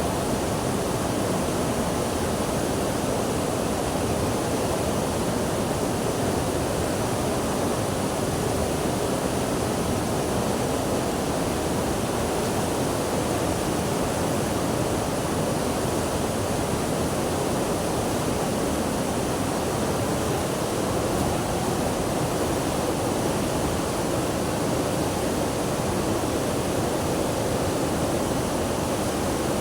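Water rushing steadily, an even unbroken hiss that does not change.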